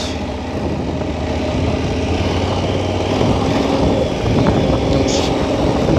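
KTM 1290 Super Adventure's V-twin engine running steadily at low revs as the heavy adventure bike picks its way over dirt and grass.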